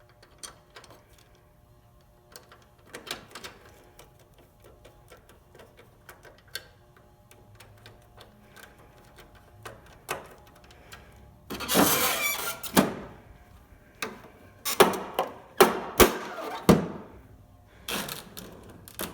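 Reassembled HP Designjet Z3200 large-format printer running its mechanism: scattered light clicks, then from about halfway through several loud bursts of whirring and clattering with sharp clicks.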